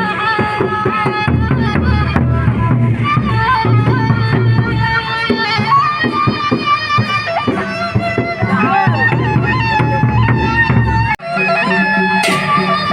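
Sasak gendang beleq ensemble playing: large drums beating under a reedy wind melody. About eleven seconds in the sound breaks off for an instant and comes back with the low drumming much fainter.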